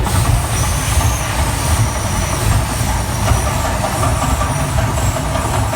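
Ground fountain ('volcano') firework burning with a steady rushing noise and a low rumble, with a faint thin high whistle.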